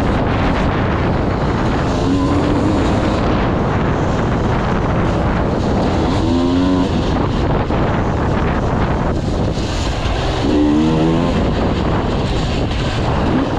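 Enduro dirt bike engine running hard on a dirt trail, its pitch rising and falling as the throttle is worked, strongest about six seconds in and again near ten seconds. Wind noise on the microphone throughout.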